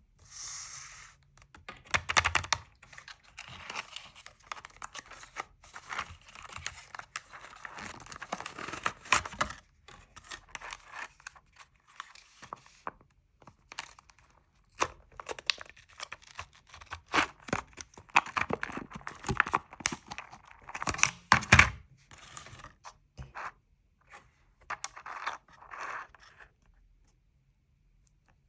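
Crisp breadsticks eaten with hummus, close up: irregular bursts of crunching and crackling as they are bitten and chewed, loudest around two seconds in and again about two-thirds of the way through. The crunching stops shortly before the end.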